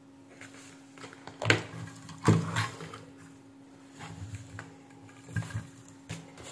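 Handling noise as a circuit board and tools are moved about on a workbench: irregular knocks and clatter, the two sharpest about a second and a half and two and a quarter seconds in, over a faint steady hum.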